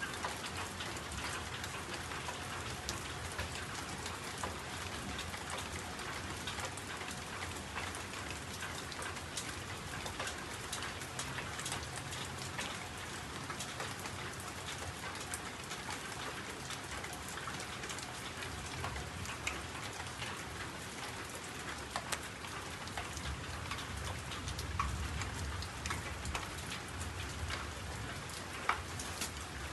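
Steady rain falling, an even patter with many small scattered drop ticks.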